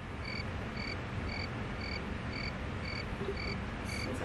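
Cricket-like chirping: short, even chirps about twice a second over a low steady rumble.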